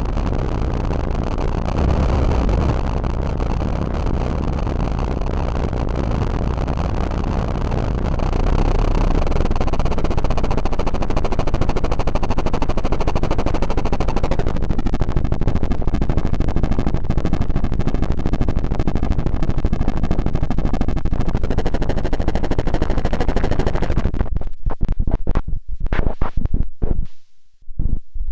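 Erica Synths Bassline synthesizer playing a dense, distorted, noisy bass sound with heavy low end. Near the end it breaks into rapid, choppy stuttering with short gaps of silence.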